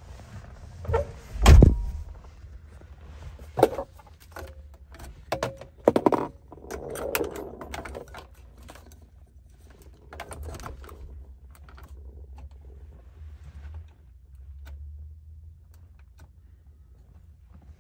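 Clicks and knocks of a 1983 BMW 733i's dashboard switches and buttons being pressed inside the cabin, with one heavier thump about a second and a half in and a quick cluster of clicks around six seconds.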